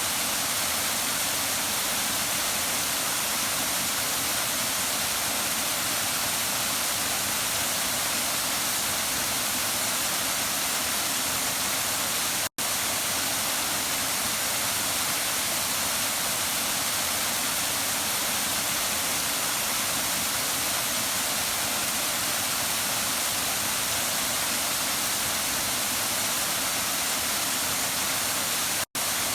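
Waterfall: a steady, even rush of falling water, cutting out for an instant twice, about twelve seconds in and again near the end.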